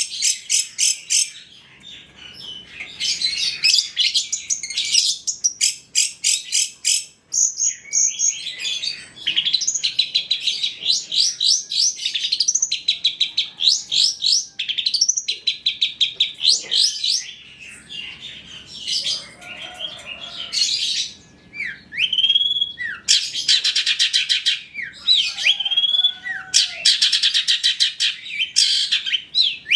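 Long-tailed shrike (cendet) singing a fast, varied song of rapid chattering trills and runs of repeated notes, mixed with short slurred whistles, with brief pauses between phrases.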